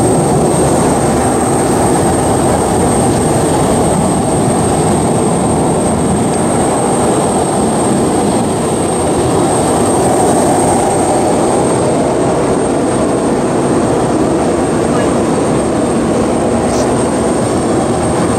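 Jet aircraft engine running steadily: a loud, even roar with a thin, steady high-pitched whine over it.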